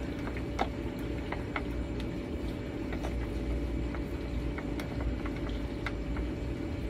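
Stir stick stirring thick acrylic paint in a plastic cup, giving faint irregular clicks against the cup, with a sharper click at the end, over a steady low background hum.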